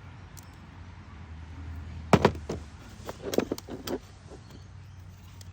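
Hard knocks and clatter of a corroded mechanical part being worked apart by hand: two sharp strikes about two seconds in, then a run of smaller clicks and rattles.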